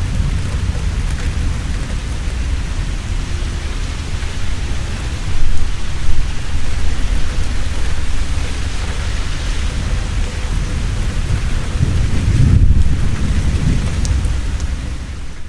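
Heavy rain falling steadily, with thunder rumbling low throughout. The thunder peaks twice in quick succession about a third of the way in and swells again near the end.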